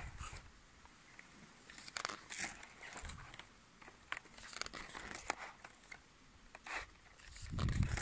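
Paper pages of a spiral-bound desk calendar rustling and flapping as they are turned, a series of separate short rustles. A low rumble comes up near the end.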